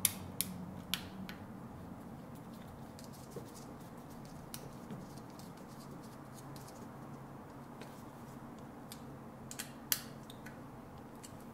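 Faint clicks and scrapes of a screwdriver on the terminal screw of a lamp receptacle as the black wire is fastened. There are a few sharp clicks near the start and two more about ten seconds in, over a low steady hum.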